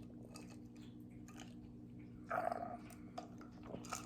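A person's faint mouth and throat sounds, with a short louder one about two seconds in and a smaller one near the end, over a steady low hum.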